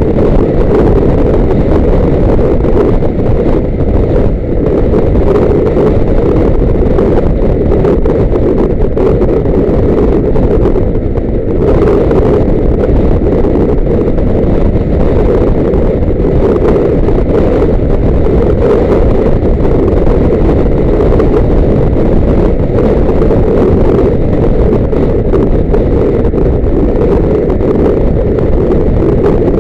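Loud, steady rushing of wind on the microphone, mixed with the running noise of a moving vehicle.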